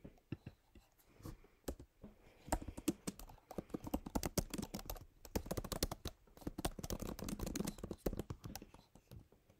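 Typing on a computer keyboard: a fast, uneven run of key clicks that starts sparsely, becomes dense about two and a half seconds in, and stops shortly before the end.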